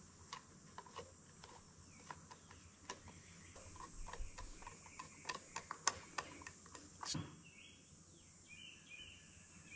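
Faint metallic ticks and clicks of a screwdriver turning a brass nozzle into and back out of a Briggs & Stratton Flo-Jet carburetor body, with one sharper click near the end. The nozzle is being seated to test whether its tapered seal mates in the housing. Faint bird chirps near the end.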